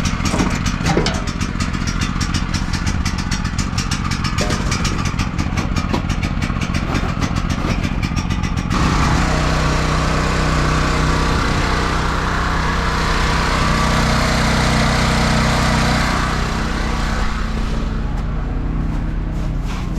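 An engine running steadily at idle, with a fast, even ticking over it for the first half. About nine seconds in, the sound changes abruptly to a smoother, fuller running.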